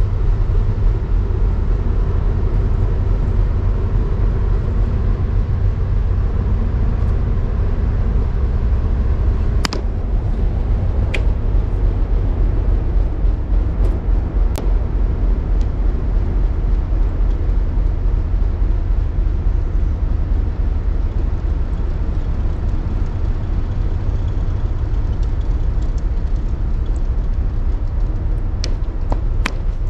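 Steady low rumbling outdoor background noise, with a few short sharp clicks scattered through it.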